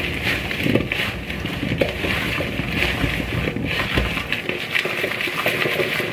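Oiled fingerling potatoes being tossed and mixed by hand in a plastic bowl: many small, irregular knocks of the potatoes against each other and the bowl, over a steady hiss.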